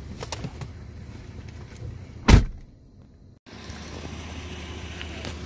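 Small clicks and rustling as a person climbs out of a car, then a car door slamming shut once, a little over two seconds in, the loudest sound. After a sudden cut, a steady low rumble.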